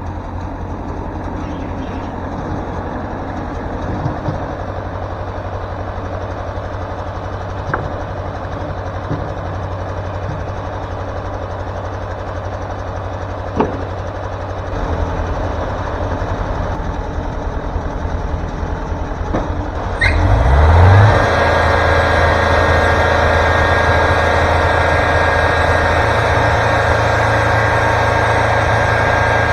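Wood-Mizer LT40 Super Hydraulic sawmill's engine running steadily, with a few sharp knocks. About twenty seconds in it revs up, gets louder, and holds at a higher, steady pitch with a whine.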